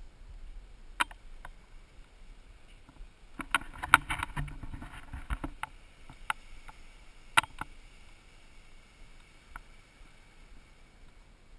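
Scattered knocks, clicks and rubbing from an action camera being picked up and handled, busiest about four to five seconds in, over a faint steady background.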